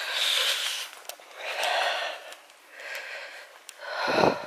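A tired hiker breathing hard while walking, four breaths roughly a second and a half apart, the last one louder and deeper.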